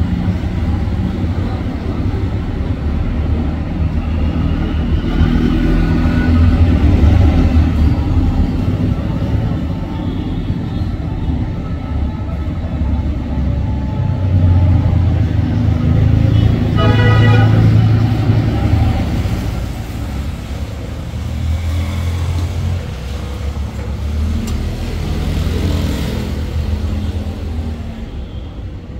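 Steady low mechanical rumble that swells and fades, with a brief horn-like toot about 17 seconds in.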